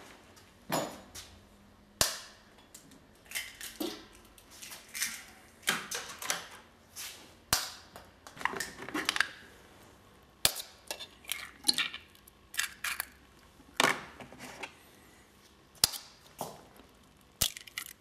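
Eggs being cracked one after another against a stainless steel pot: a series of sharp taps of shell on metal, about one or two a second, with a short metallic ring after some of them.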